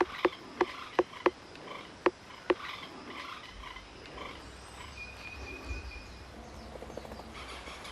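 Okinawa woodpecker pecking at a tree trunk for insects: about seven sharp, irregularly spaced knocks of bill on wood in the first two and a half seconds. After that, a steady chorus of forest insects and frogs continues.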